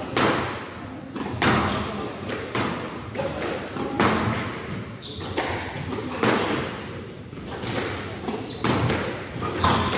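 Squash rally: the ball is struck by rackets and smacks off the court walls in a string of sharp hits, about one every one to two seconds, each echoing briefly in the hall.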